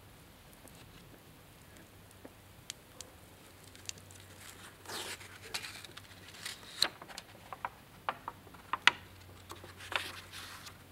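A 1617 printed book being opened by hand: stiff old cover and paper pages turned over, making soft swishes of paper and a run of sharp crackles and clicks, starting a few seconds in and sharpest near the end.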